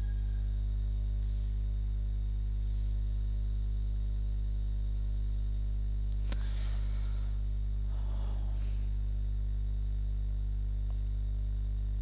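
Steady low electrical hum with several evenly spaced overtones, typical of mains hum picked up by the recording. A faint, brief rustle comes about six seconds in and again around eight seconds.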